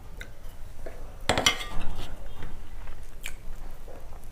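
Stainless-steel bowl and plate clattering together, with one loud ringing clank about a second and a half in and a few lighter clinks after.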